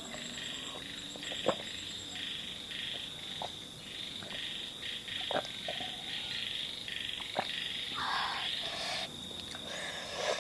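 Frogs croaking in a steady night chorus with a high pulsing trill, a louder call about eight seconds in, and scattered short clicks.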